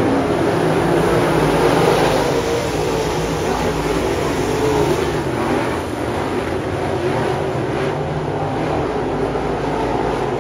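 A pack of dirt late model race cars running at speed on a dirt oval, their V8 engines blending into one loud, wavering drone.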